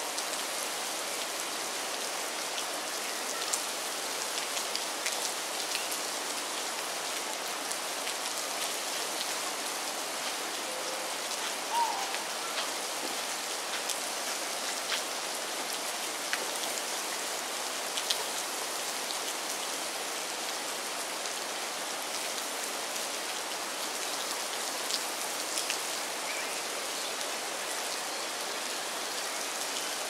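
Steady rain falling, an even hiss of drops on the river and the grass, with scattered sharper ticks of single drops.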